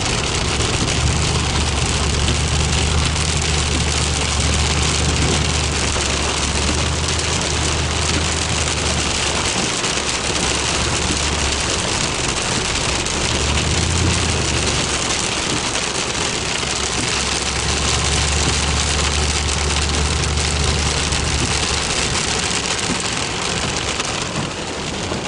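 Heavy rain falling hard and steadily, with a low engine hum underneath that comes and goes.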